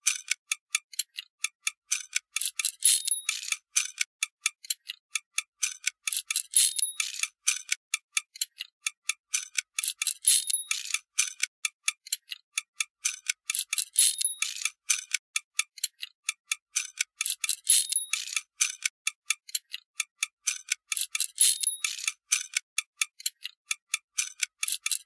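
Wind-up toy's clockwork mechanism ticking: a fast, even run of light clicks, several a second. A louder, ringing click cluster recurs about every three and a half seconds.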